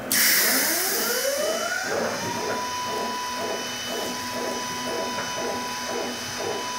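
Electric drive motors of a wheeled welding repair robot starting up with a short burst of hiss, then whining up in pitch over about two seconds as it pulls away. The whine then holds steady, with a rhythmic pulsing about three times a second as the robot drives across the floor.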